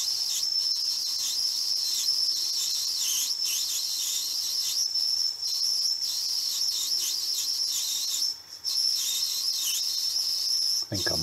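Metal lathe boring out a brass casting with a boring bar, giving a steady high-pitched whine from the cut. The whine drops out briefly about three quarters of the way through, then comes back.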